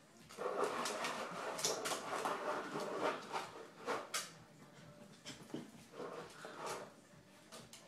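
Maltese dogs at play, vocalising with play growls and whimpers in two spells, the first in the opening few seconds and the second about six seconds in. Sharp clicks sound through the play.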